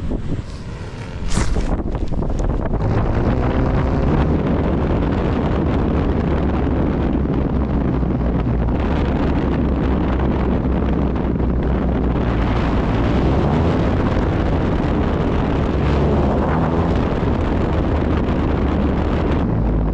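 Strong wind buffeting the microphone of a camera carried aloft on a kite line: a steady low rumble that rises abruptly about a second and a half in.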